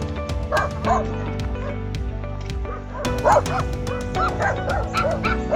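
Background music with a steady percussive beat and sustained tones. Short high yelps like a dog yipping recur over it every second or so.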